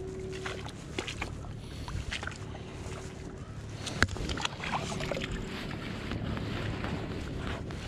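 Wind rumbling on the microphone, with wet splashing and handling knocks as a freshly dug clam is handled on a wet tide flat. One sharp click about four seconds in.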